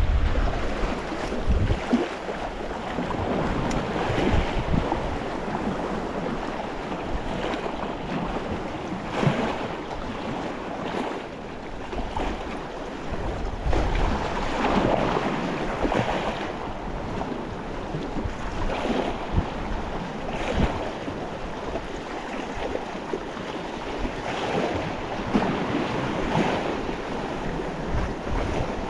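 Sea waves washing onto the shore in irregular surges, with wind buffeting the microphone.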